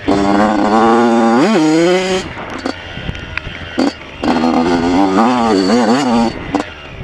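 Yamaha YZ85 two-stroke single revving hard under throttle with a quick blip, backing off for about two seconds, then pulling hard again with wavering revs before easing off near the end.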